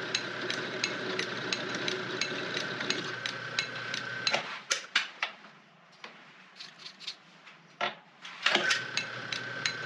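1921 Dalton B4 metal lathe running while a drill bit in the tailstock chuck bores through a bolt, with a steady whine and a regular click about three times a second. The running sound drops away about four seconds in, a few knocks follow, and the same whine and clicking come back just before the end.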